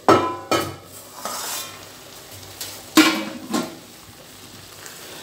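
A stainless steel lid clanks against a steel pan as it is lifted off: two sharp, ringing metal knocks, and two more about three seconds in as it is set down. Between and after the knocks the carrot halwa sizzles faintly in the pan.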